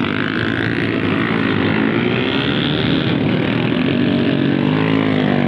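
Motorcycles riding past one after another, their engines running loudly and rising and falling in pitch as they rev and go by.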